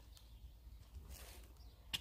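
Small paint roller worked over a wooden roof trim: a faint brushing hiss about a second in, then a sharp click just before the end, over a low steady hum.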